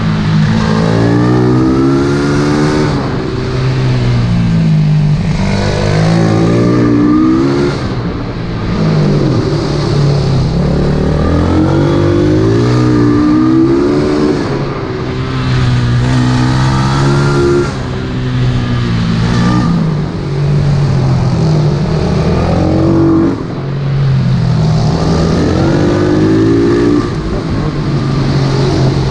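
Pit bike single-cylinder engine revving hard from on board, its pitch climbing and falling over and over. Every few seconds the level dips briefly as the throttle closes for a corner.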